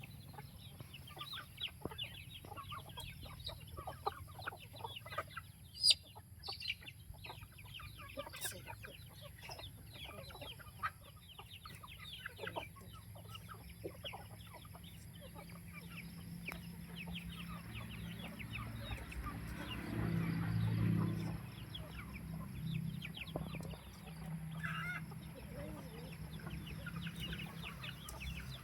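A flock of free-range chickens clucking continually, with many short overlapping calls and a louder stretch about two-thirds of the way through.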